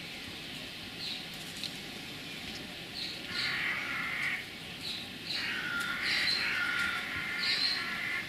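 Wild birds calling over a steady outdoor background: scattered short high chirps, and two longer calls, one about three seconds in lasting about a second, another from about five seconds in lasting nearly three seconds.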